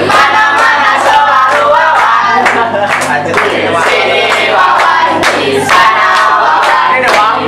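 A small group of teenagers singing a team chant together, clapping along in a steady rhythm.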